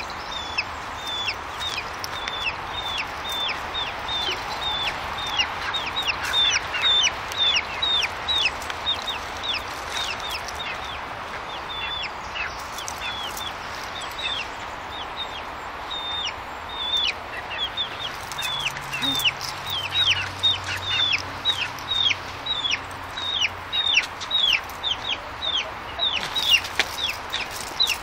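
Baby chicks peeping: a steady run of short, high peeps, each falling in pitch, about two or three a second.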